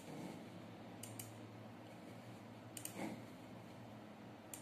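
A few sharp clicks of computer keys: a quick double click about a second in, another pair near three seconds, and a single one near the end, over a faint low hum.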